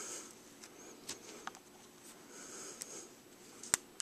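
Faint scratching and rustling of serving thread being wrapped by hand around a bowstring, with a few light clicks and one sharper click near the end.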